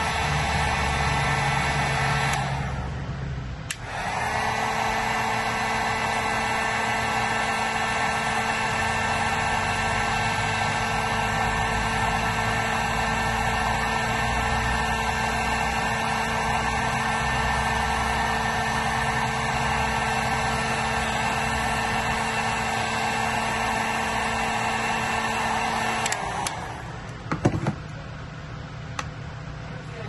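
Electric heat gun running, its fan motor blowing with a steady whine as it shrinks heat-shrink tubing over a wire's bullet connector. It switches off a couple of seconds in and comes back on about a second later with a rising whine. It switches off again a few seconds before the end, followed by a couple of light knocks.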